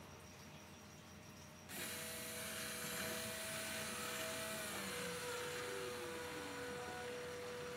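Syringe drive motor of a Reefbot automated reef water tester, drawing liquid up into the syringe. A steady electric whine with several tones starts about two seconds in, and some of the tones slide lower around the middle.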